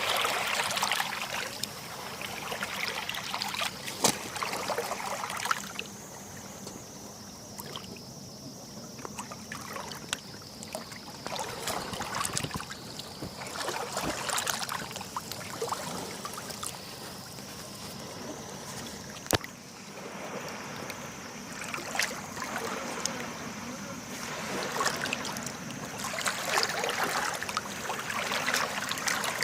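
Sea water lapping and splashing with small waves washing in, full of sharp little splashes. It swells louder near the start and again near the end.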